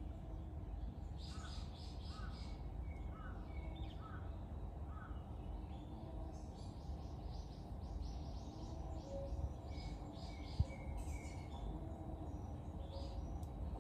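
A crow cawing about five times in a row, then smaller birds chirping, over a steady low outdoor rumble. One sharp click about two-thirds of the way through.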